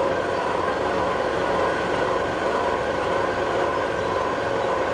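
Large metal-cutting machine tool running steadily: a constant mechanical drone with several held tones and no separate knocks or impacts.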